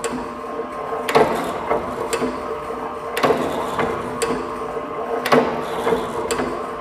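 Motor-driven soap stamping press running with a steady hum, its die punching down about once a second with a sharp clack at each stroke.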